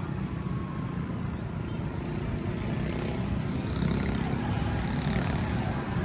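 Road traffic: nearby car, auto-rickshaw and bus engines running, a steady low rumble that grows slightly louder.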